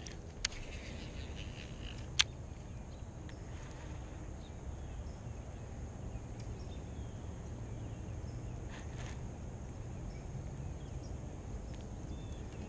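Two sharp clicks from handling a baitcasting reel, the second louder, over a steady low outdoor rumble.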